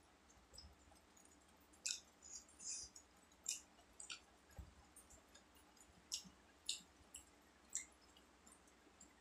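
Close-miked eating sounds: chewing with sharp, wet mouth clicks and smacks, and the soft squish of cooked rice being mixed with dal by hand, over a quiet background.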